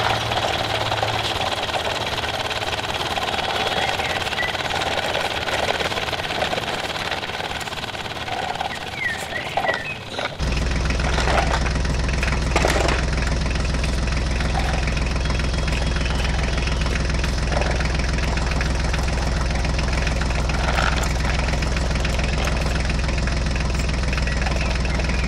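Tractor engine running steadily, a sound laid over a toy tractor being driven along. About ten seconds in it switches abruptly to a deeper, very steady engine sound that carries on unchanged.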